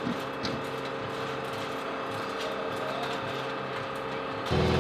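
Steady machine hum on an aircraft flight line, with a few light metallic clicks from the weapons load crew working at the wing pylon. About four and a half seconds in it changes abruptly to a louder, deeper hum.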